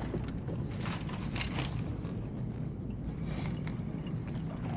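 Steady low wind rumble on an outdoor boat microphone, with a few short scraping, crunching handling noises about a second in and again past three seconds.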